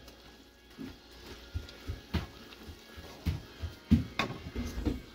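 Wooden spatula scraping and knocking against a stone-coated frying pan as ground beef and diced vegetables are stirred, in short irregular strokes over a faint sizzle of the browning meat.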